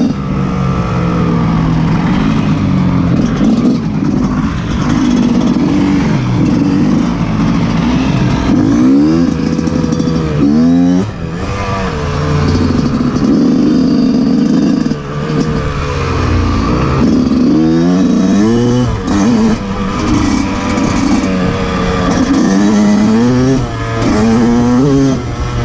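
Yamaha YZ125 two-stroke single-cylinder dirt bike engine under way, revving up and falling back again and again, with brief drops in loudness as the throttle is let off.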